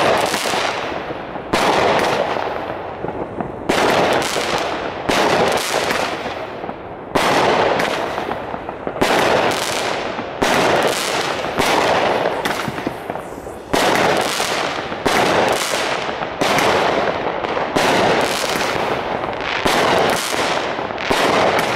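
WECO Stardust compound firework cake firing shot after shot, about one every second and a half. Each sharp report is followed by a fading crackle as the stars burst into glittering sparks.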